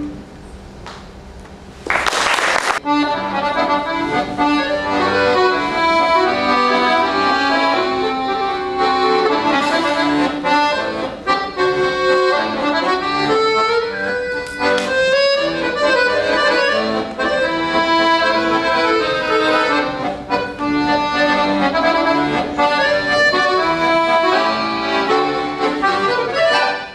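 Piano accordion playing a solo piece, a melody over chords, starting about three seconds in. A short burst of noise comes just before the playing begins.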